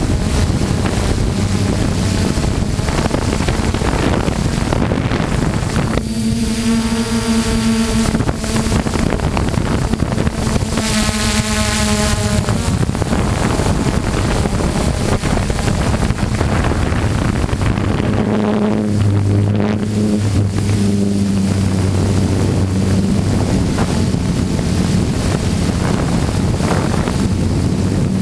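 Multirotor drone's electric motors and propellers running in flight, heard from the onboard camera with wind buffeting the microphone. The motor whine changes pitch as the drone changes speed, standing out twice in the first half and again about two-thirds of the way in.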